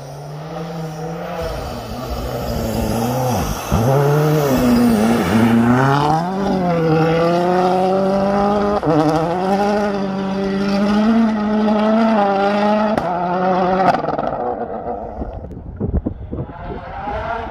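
M-Sport Ford Fiesta WRC rally car's turbocharged four-cylinder engine at full throttle, its pitch climbing and dropping through gear changes as the car approaches and passes. The sound cuts away abruptly near the end, with an engine faintly heard again just before the close.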